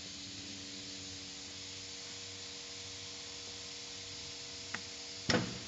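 Steady machine hum and hiss. A light click comes near the end, then a louder, sharp knock.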